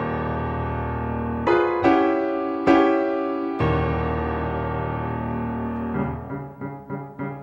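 Keyboard music, piano or electric piano: long held chords, with fresh chords struck about a second and a half in and a few more times before four seconds. Near the end it turns to quicker, short repeated notes.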